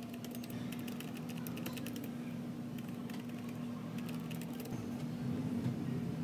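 Typing on a slim low-profile computer keyboard: quick clicking keystrokes, dense for the first two seconds and sparser after, over a steady low hum.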